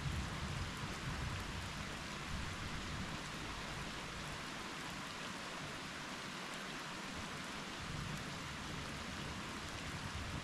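Steady rain heard through a window. The tail of a low thunder rumble fades over the first couple of seconds, and a faint low rumble returns near the end.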